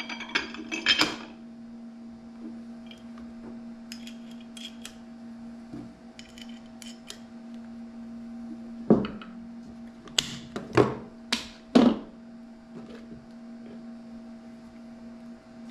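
Metal soft-plastic bait molds being handled and pulled apart: clinks and light knocks of the mold halves and clamps, with a cluster of louder knocks a little past the middle, over a steady low hum.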